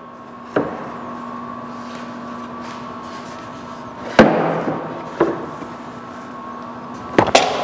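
Glued wooden chest panels knocking against each other and the workbench as they are folded up into position: a few scattered wooden knocks, the loudest about four seconds in, and a quick cluster of knocks near the end.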